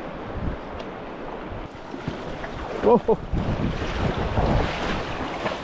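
Steady rush of river water with wind buffeting the microphone. About three seconds in, a short, loud voiced exclamation cuts through.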